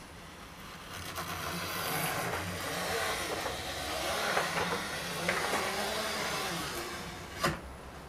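Skin-cutting tool drawn along a ski's edge, slicing off the excess of a Colltex climbing skin: a steady scraping hiss that builds about a second in and fades out near seven seconds, followed by a sharp click.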